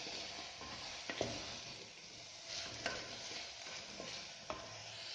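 Chopped greens, carrot and beans sizzling as they are sautéed in oil in a metal pressure cooker pot, stirred with a wooden spatula that knocks against the pot a few times.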